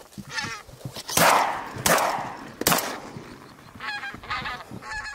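Three shotgun shots about three quarters of a second apart at geese flying over, with goose honks before and after the volley.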